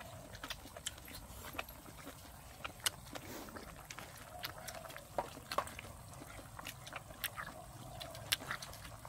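People eating tough stewed duck: chewing and slurping, with scattered sharp clicks of chopsticks against porcelain bowls and the steel pot at irregular intervals.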